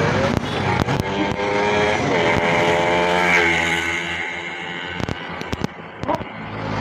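Motor traffic passing on the road, the steady hum of vehicle engines. The pitch drops a little after two seconds as one goes by, and a few sharp clicks come about five seconds in.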